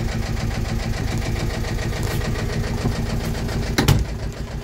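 The sailboat's inboard engine idling steadily with an even pulsing beat, heard from inside the cabin. A single sharp knock sounds near the end.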